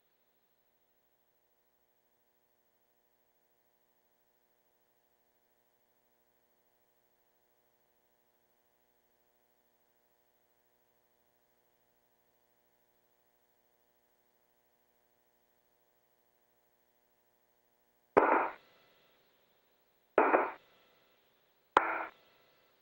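A faint steady hum on a quiet radio channel, then three short radio transmission bursts near the end. Each burst opens with a sharp key click and fades within half a second, and they come about two seconds apart.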